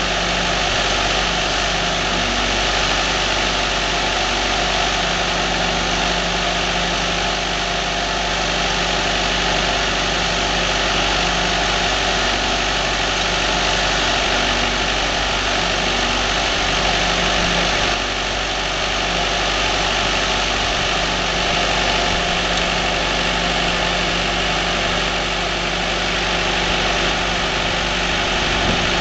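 Firewood processor running, its engine holding a steady speed, with no distinct cuts or splits standing out.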